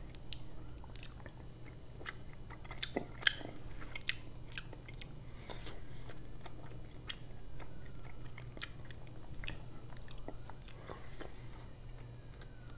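Close-miked chewing of a plant-based burger patty: soft wet mouth clicks and smacks, with two sharper clicks about three seconds in.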